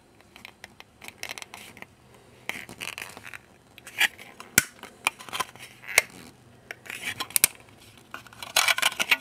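Hard plastic parts of a cheap knockoff Thomas transformer toy clicking and scraping as they are twisted and folded by hand. There are scattered sharp clicks, with a denser scraping rustle near the end.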